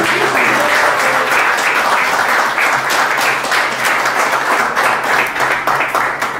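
Audience applause, many hands clapping together, dying away near the end.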